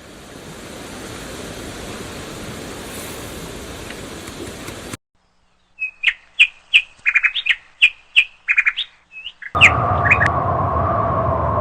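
Nature sound recordings played one after another. First comes a steady, even noise for about five seconds that cuts off abruptly. After a brief gap a bird chirps in quick repeated calls, and near the end a steady droning sound with a low rumble begins.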